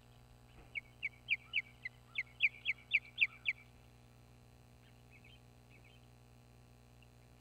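Osprey calling: a run of about eleven sharp, high chirps, about four a second, with a few faint ones following a couple of seconds later.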